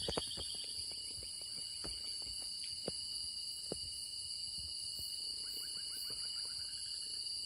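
Night insect chorus of crickets or cicadas, a steady high-pitched drone. A few knocks sound over it, and a short rapid rattling call comes about five seconds in.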